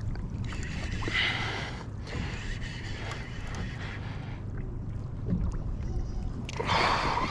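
Wind buffeting the microphone over water lapping and gurgling against a kayak hull, with louder rushes of splashy noise about a second in and again near the end.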